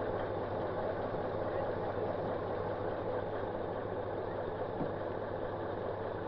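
Steady mechanical running noise of a heavy rail vehicle, with a constant low hum and no distinct knocks or changes.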